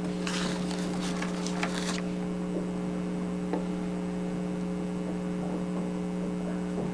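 Steady electrical mains hum, with a short stretch of rustling handling noise in the first two seconds and a few faint ticks later.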